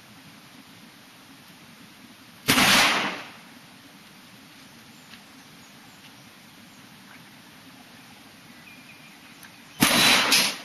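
.44 Magnum gun fired twice, about seven seconds apart. Each shot is a loud report with a short ringing tail.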